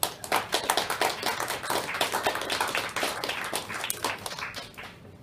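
Audience applauding, breaking out all at once and dying away near the end.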